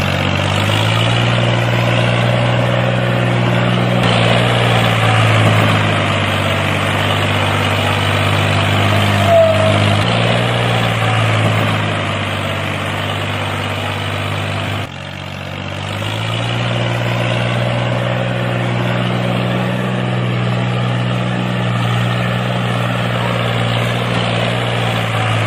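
Tractor engine running steadily with a low, even hum. It drops off briefly about fifteen seconds in and then picks up again.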